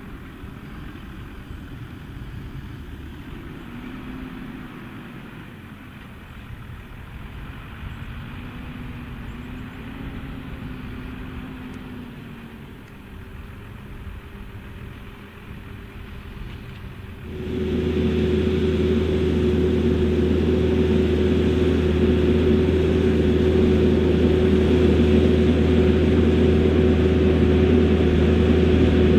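Same Fortis 160 tractor's diesel engine running steadily under ploughing load. It starts as a moderate, distant-sounding rumble. About two-thirds of the way through it suddenly becomes much louder, a steady engine drone with a strong low hum.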